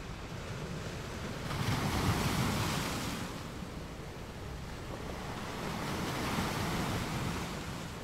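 Rushing water noise heard underwater, swelling up twice: once about a second and a half in, and again more softly past five seconds.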